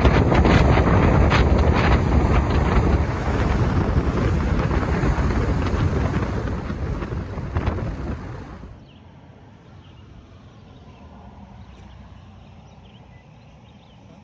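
Strong wind buffeting the microphone, a loud rushing roar, for about nine seconds. It then cuts off abruptly to a much quieter outdoor background with a few faint chirps.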